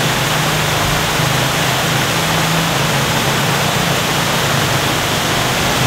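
Steady, loud rush of falling water from a water feature, with a low steady hum beneath it.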